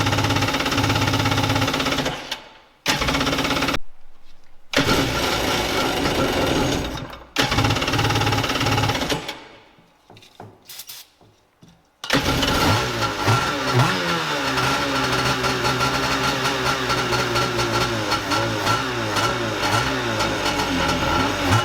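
Kawasaki X-2 jet ski's freshly swapped 750 two-stroke twin engine running after its first start on the new motor, revving up and down from about halfway through. The first half is broken by several abrupt cut-outs.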